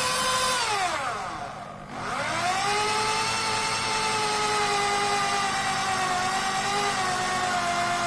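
Electric power tool motor whining at speed, then dropping in pitch about half a second in as it slows under load. Around two seconds in it picks up speed again and runs steadily until it stops abruptly.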